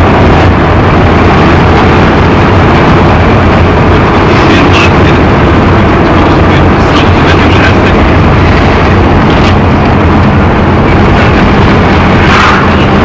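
Loud, steady vehicle rumble, engine and road noise, with a few brief clicks or rattles.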